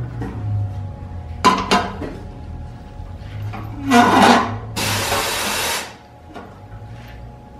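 Metal exhaust tubing knocking and scraping as it is handled and fitted up under a car, with sharp knocks about a second and a half in and a louder scraping clatter near the middle. A hiss follows for about a second and cuts off suddenly.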